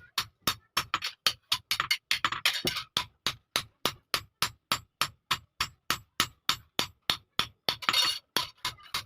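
Blacksmith's hammer striking iron on an anvil in a rapid, steady rhythm of about four blows a second, with music underneath.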